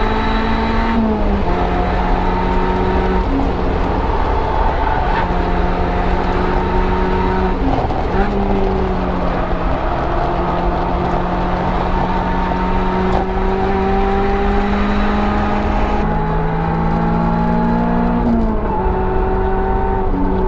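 Mazda ND Miata on the move, heard from inside the trunk: a steady drone of engine and drivetrain with the differential's gear whine and grittiness, made louder by the aftermarket JBR differential mount. The tones step down and back up in pitch a few times as the load or speed changes.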